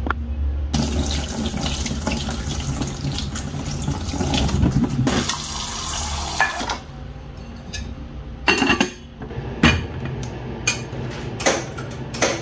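Kitchen tap running water into a stainless steel pot of sweet potatoes in the sink, a steady rush that stops after about six seconds. Then several sharp knocks and clanks as the pot and its lid are handled.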